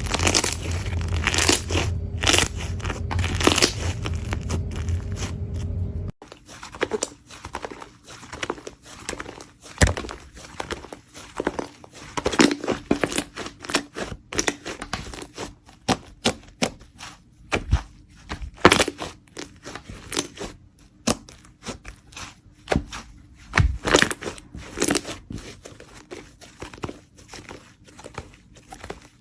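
Slime being squished and stretched by hand: a run of sharp crackling and popping clicks. About six seconds in, a steady low hum under the clicks cuts off abruptly and the pops continue sparser against a quieter background.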